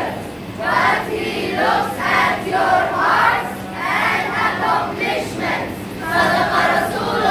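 A class of schoolchildren's voices speaking in unison in a rhythmic, chant-like recitation, swelling and falling about once a second, with a steady low hum underneath.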